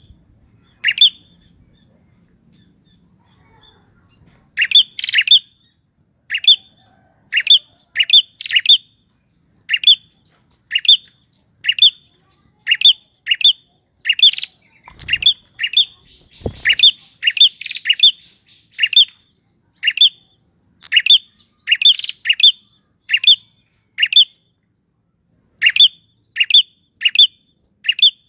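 Male prenjak songbird calling vigorously: short, sharp, high chirps, single or in quick pairs and triplets, repeated about once a second. Two dull low thuds come midway.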